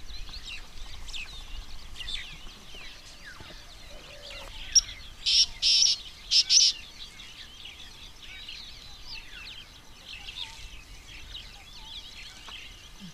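Natural chorus of many small birds chirping and calling in quick short notes. A handful of loud, short, buzzy calls cut in about five to seven seconds in.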